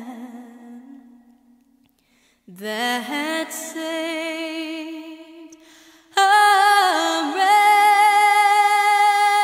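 Unaccompanied singing voice holding long, wavering notes without clear words. It fades to a short gap about two seconds in, starts again, and grows louder about six seconds in.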